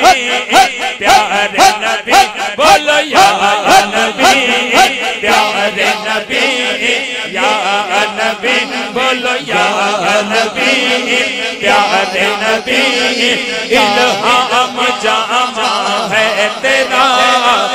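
Men chanting an Urdu devotional naat in praise of the Prophet, with steady rhythmic hand-clapping keeping the beat.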